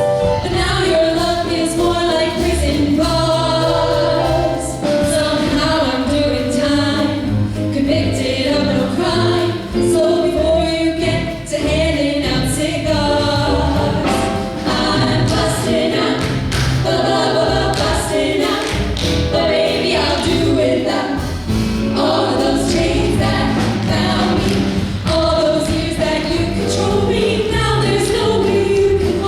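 Music: a group of voices singing together over low sustained bass notes, continuing without a break.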